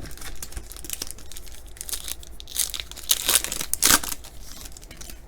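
A foil-wrapped baseball card pack being torn open and its wrapper crinkled, loudest in a burst of crackling a little after halfway.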